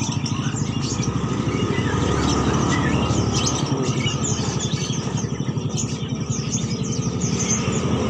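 Many small caged songbirds chirping and twittering in quick, overlapping short notes, over a steady, loud engine rumble running close by.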